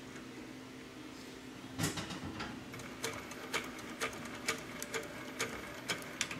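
Industrial sewing machine stitching a patch onto old cotton canvas, driven slowly stitch by stitch. From about two seconds in comes a row of sharp clicks, roughly two a second, over a steady low hum.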